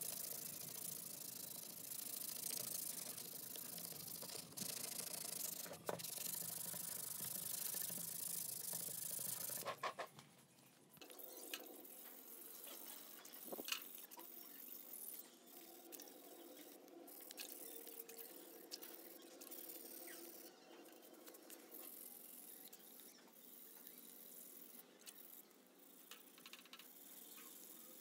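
Abrasive paper rubbing over the housing of a Makita 4100NB cutter, an even scratchy hiss for about ten seconds. Then the housing is scrubbed with the paper under water in a metal basin, quieter, with faint splashing and drips.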